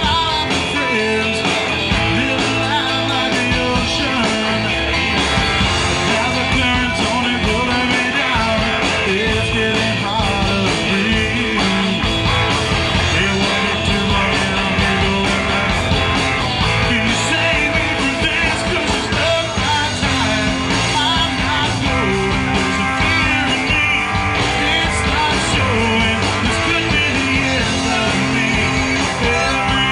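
Live rock band playing at full volume: electric guitars, bass guitar and drum kit through a PA, with a steady beat.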